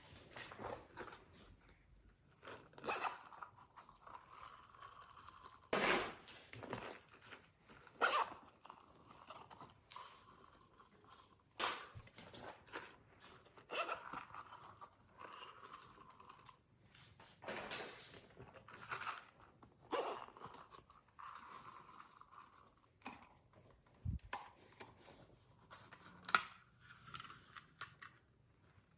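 Glossy slime being squished, stretched and mixed by hand, with irregular sticky crackles and pops.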